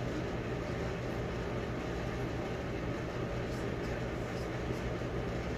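Steady low hum with an even hiss, unchanging throughout, the sound of a running appliance or room machinery.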